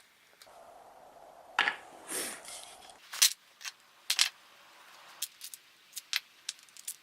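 A series of sharp clicks and taps from small hard objects being handled, irregularly spaced, with the loudest a little past three seconds and again about four seconds in. A faint steady hum runs under the first three seconds.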